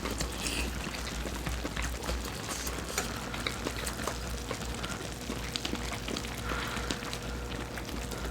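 Pot of budae jjigae (Korean army stew) bubbling steadily, with many small pops and crackles.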